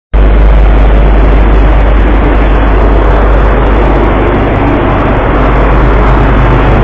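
Loud, steady low drone of a boat's engine, heard on deck through a phone microphone, with an even rushing noise over it; it cuts in suddenly right at the start.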